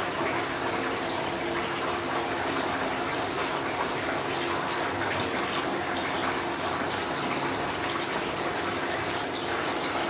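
Water splashing steadily from a small tabletop waterfall fountain, a thin sheet and several narrow streams falling from spouts into its basin.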